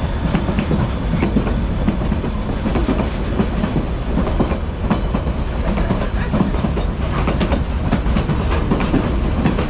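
White Pass & Yukon Route Railway train running on the rails, its wheels clattering with many irregular sharp clicks over a steady, loud low rumble.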